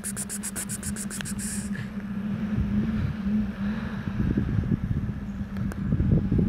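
Outdoor background noise: wind rumbling on the microphone over a steady low hum, with a fast, high ticking, about eight ticks a second, that stops about two seconds in.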